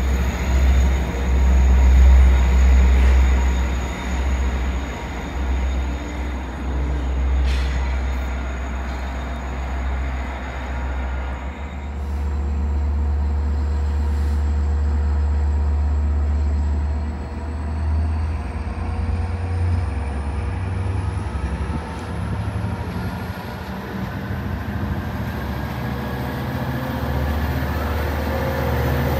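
Long Island Rail Road DE30AC diesel-electric locomotive pushing a departing push-pull train, its diesel engine giving a heavy low rumble. Then a second DE30AC-led train approaches, its engine and rail noise building, with a faint high whine rising in pitch near the end.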